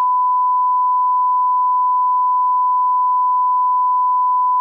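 TV test-signal tone: one steady, unbroken pure beep, the reference tone that goes with colour-bars test patterns.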